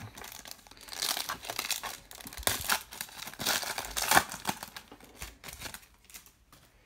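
Foil wrapper of a baseball card pack being torn open and crinkled by hand: dense crackling, loudest about four seconds in, then dying down as the cards come out.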